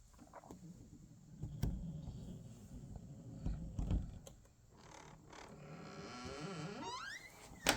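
A bathroom door being handled: a few knocks and thumps, a rising squeak near the end and a sharp click.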